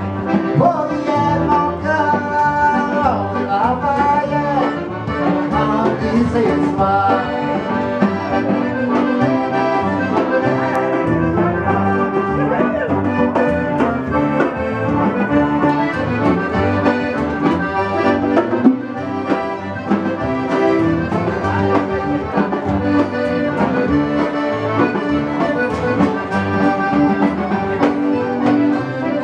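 Live band music led by an accordion, with fiddle, upright bass and drums keeping a steady dance beat.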